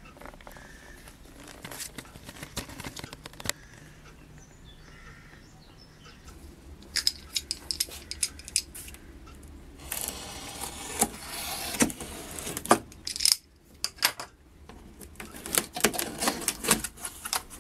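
A utility knife slits packing tape along a cardboard box, with scattered clicks and scrapes of handling. Near the end, the taped flap is torn open in a quick run of clicks and tearing.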